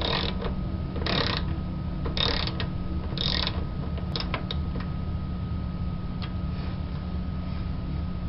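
Small socket ratchet wrench clicking as a screw is turned in: four short ratcheting strokes about a second apart, then a few single clicks, over a steady low hum.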